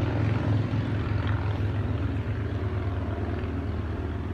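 A motor vehicle driving past on a paved two-lane parkway: an engine drone with tyre noise, loudest about the first second in and slowly fading as it moves away.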